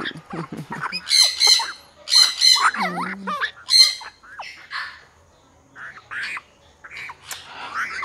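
Parrots squawking: a few loud, harsh squawks in the first four seconds, then quieter, shorter calls.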